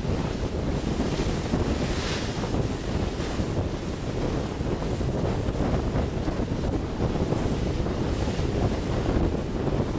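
Wind buffeting the microphone aboard a ship under way, over the steady rush of harbor water. A brief swell of hissing spray comes about two seconds in.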